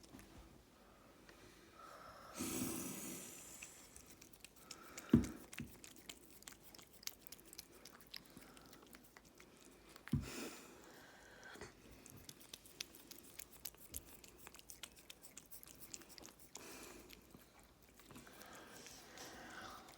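Cat licking and chewing food off a finger: faint, rapid wet clicks of the tongue, with two sharp thumps about five and ten seconds in.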